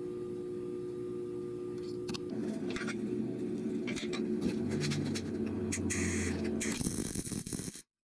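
Steel plates being handled and set in place on a steel slat table: scattered metal clinks and scraping, starting about two seconds in over a steady shop hum.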